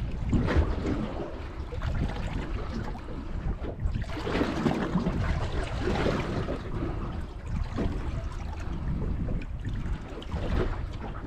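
Water lapping and slapping against the hull of a small aluminium boat sitting stopped on the sea, with wind buffeting the microphone. The sound swells and fades irregularly.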